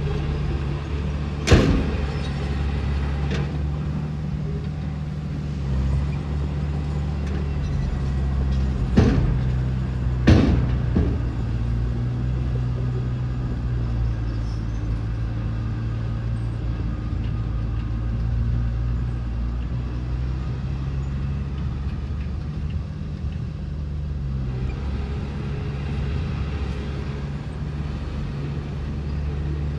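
Diesel engine of heavy earthmoving machinery running steadily at a low drone. Several sharp bangs cut through it: a loud one a second or two in, a fainter one soon after, and two more about nine and ten seconds in.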